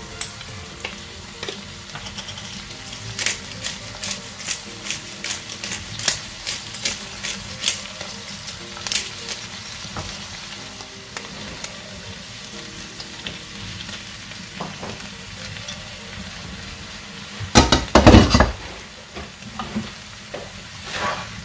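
Chicken, sausage and vegetables sizzling as they fry in a large pan, with a run of sharp clicks and scrapes through the first half. A loud clatter comes about 18 seconds in.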